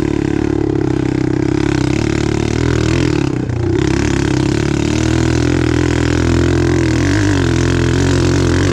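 Apollo 125cc dirt bike's single-cylinder four-stroke engine running steadily while riding, with a brief dip in the engine note about three and a half seconds in before it picks back up.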